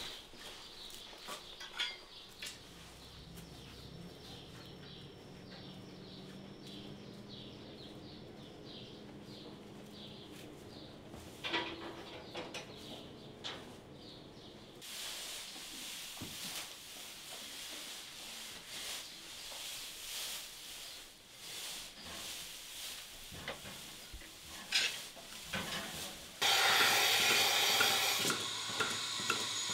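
Cow-barn sounds: a low steady hum with scattered knocks and clanks. About 26 seconds in, a loud steady hiss starts suddenly: the suction of a milking machine as its teat cups go onto a cow's udder.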